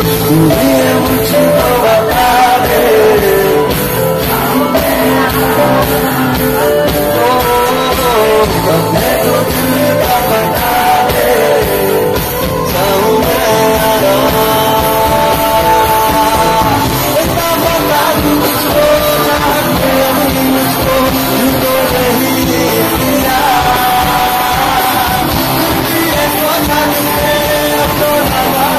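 Amplified live band playing a song: a singer's voice over acoustic guitar, bass guitar, drum kit and keyboard.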